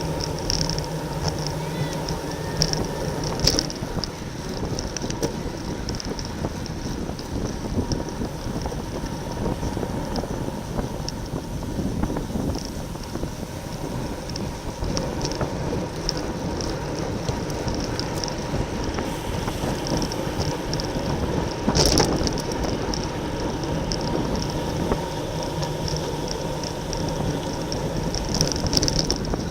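Steady rushing noise from a racing bicycle at speed in a criterium, with tyre and drivetrain noise and wind over the microphone. A sharp knock a few seconds in, and a louder one about three quarters of the way through.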